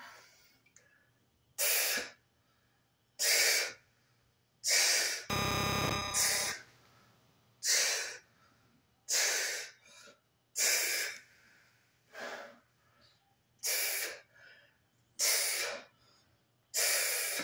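A man's sharp, forceful breaths out, about one every second and a half, in time with resistance-band overhead shoulder presses. About five seconds in, a one-second buzzy burst with a steady tone cuts across them.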